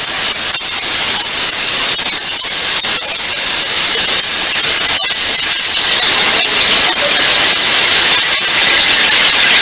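Compressed air rushing out of the opened drain valve of an air-brake system's primary reservoir: a loud, steady hiss as the tank is drained to simulate a loss of air in one system. The hiss turns thinner and higher near the end.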